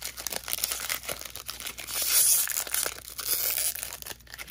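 Foil trading-card pack crinkling and tearing as it is worked open by hand, the wrapper resisting being torn. The crinkling is loudest about two seconds in.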